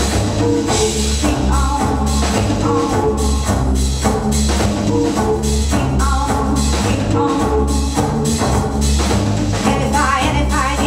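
Loud dance music with a heavy, repeating bass line and a steady drum beat.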